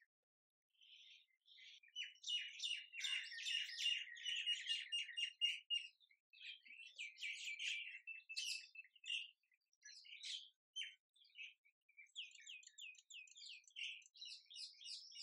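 Small birds chirping and twittering, with a fast run of rapid chirps from about two to six seconds in, then scattered calls.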